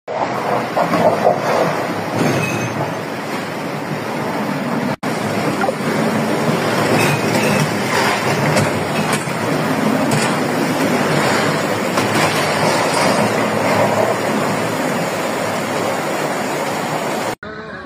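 Flash-flood torrent of muddy water rushing loudly and steadily. The sound cuts out for an instant about five seconds in.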